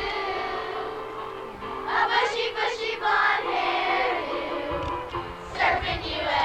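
A group of voices singing a song together with musical accompaniment, in phrases of held notes.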